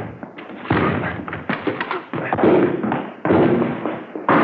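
Radio-drama sound effects of police officers forcing their way in through the doors of a house: a series of heavy thuds and crashes, roughly one a second.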